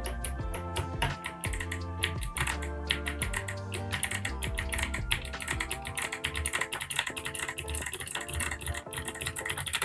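Fast typing on a mechanical keyboard with Kailh Box White V2 clicky switches, a dense run of crisp clicks several per second, over background music.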